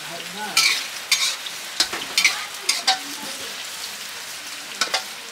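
Food stir-frying in hot oil: a steady sizzle, with a spatula scraping and clacking against the pan in irregular strokes, most of them in the first three seconds and two more near the end.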